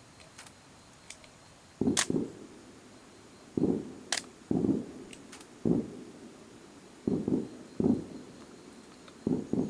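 Aerial fireworks shells bursting: a run of about eight dull booms at irregular gaps, starting about two seconds in, with a couple of sharp high cracks among them.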